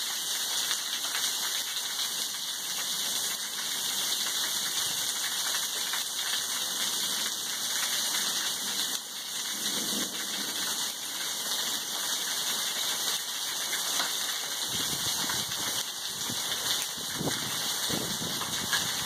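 Heavy rain falling steadily, a dense patter of drops striking hard surfaces and water splashing off a roof edge.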